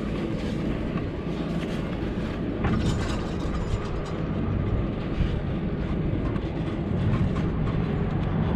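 Aerial ropeway machinery running: a steady low rumble with a few clicks.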